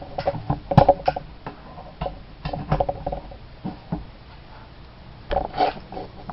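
Irregular clicks, taps and knocks close to the microphone: someone handling equipment at a desk, some knocks with a brief hollow ring.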